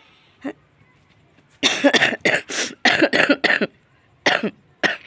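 A person with a cold coughing: one short cough about half a second in, then a rapid fit of about eight coughs, and two more single coughs near the end.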